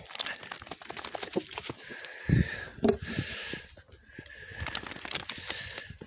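Crackling and rustling of dry leaves and brush underfoot, with a thump about two seconds in. Over it a thin, steady, high-pitched electronic-sounding tone comes on suddenly, stops for a moment, then sounds again and cuts off just as suddenly: the unidentified 'beacon' sound heard in the woods.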